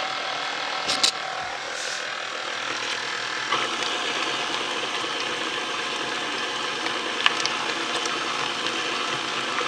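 KitchenAid stand mixer running steadily, its motor and gearing whirring as the beater mixes thick cheesecake batter in the stainless steel bowl. There is a click about a second in, and the sound gets fuller and deeper about three and a half seconds in.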